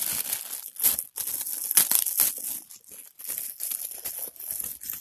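Thin clear plastic bag crinkling and rustling in irregular bursts as hands pull a PVC figurine out of it, loudest about two seconds in.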